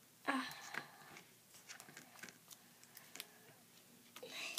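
Duct tape being handled and pressed down by hand: short crinkling rustles near the start and near the end, with scattered small clicks and taps in between.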